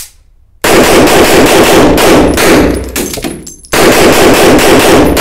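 Rapid semi-automatic pistol fire in two fast strings, echoing in an indoor range: the shooting starts about half a second in, dies away briefly a little after three seconds, and resumes.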